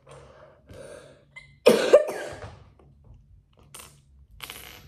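A young boy coughing into his hand: a few softer coughs, then one loud cough about two seconds in.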